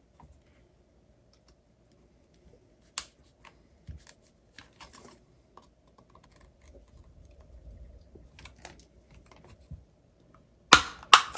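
Scattered small clicks and ticks of a thin metal pry tool working along the seam of a Lexar SL200 portable SSD's plastic enclosure. Near the end come two sharp, louder snaps as the case's clips let go.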